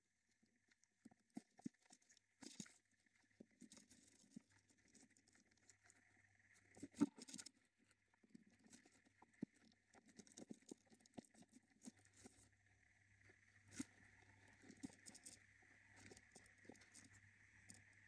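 Faint rustling and scratching of a budgerigar shifting about in shredded paper nesting material, a scatter of soft irregular scrapes and clicks, the loudest about seven seconds in. A faint steady hiss runs underneath, growing in the second half.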